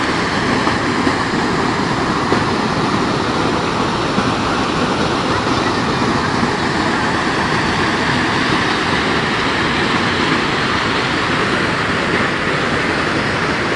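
Steady, loud rush of water pouring out of a concrete culvert and churning white over rocks.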